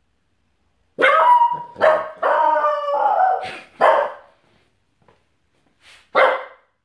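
Small dog barking in alarm at a noise by the door: a quick run of about five barks, one of them drawn out, starting about a second in, then one more bark near the end.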